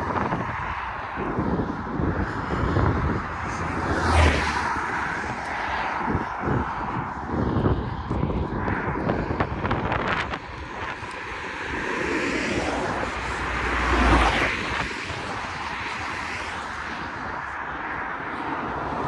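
Road traffic: cars passing on an open two-lane road with tyre noise, swelling louder about four seconds in and again about fourteen seconds in, mixed with wind rumbling on the microphone.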